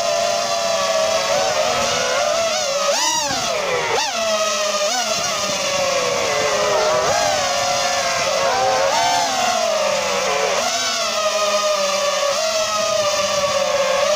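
Five-inch FPV quadcopter's four Xing-E Pro 1800KV brushless motors with Ethix S3 propellers on a 6S battery whining steadily in flight. The pitch sweeps sharply up and back down as the throttle is punched, about three seconds in, then again near four, seven, nine and eleven seconds.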